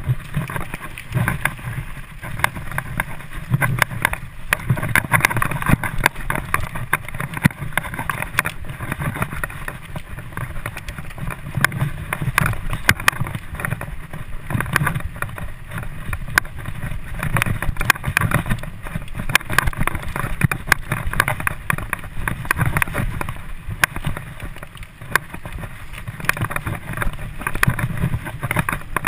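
Mountain bike ridden fast along a dirt trail, heard from a camera on the rider: a continuous rumble of wind on the microphone and tyres on dirt, with frequent rattles and knocks from the bike jolting over bumps.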